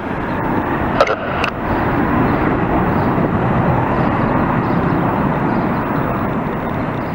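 Steady rushing noise of a large jet aircraft's engines at takeoff power, swelling a little over the first two seconds and then holding. A brief air traffic control radio call cuts in about a second in.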